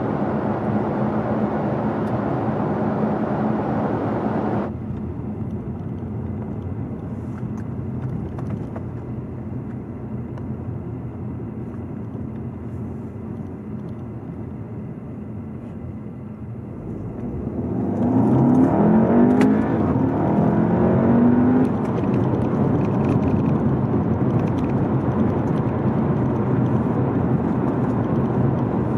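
Cabin sound of a Skoda Superb's 2.0-litre turbocharged four-cylinder on the move. Steady engine and road noise at speed gives way to quieter cruising. About 17 seconds in, the engine is pushed hard under full acceleration: the note climbs steeply twice with a gearshift between, then settles into a steady louder run at speed.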